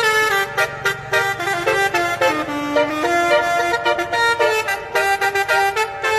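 Musical multi-tone telolet-style horns playing a melody of changing notes over a steady percussive beat.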